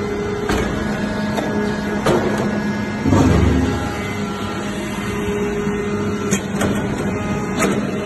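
Hydraulic metal-chip briquetting press running: its power unit's motor and pump give a steady hum, with scattered sharp clicks and a louder low rush about three seconds in.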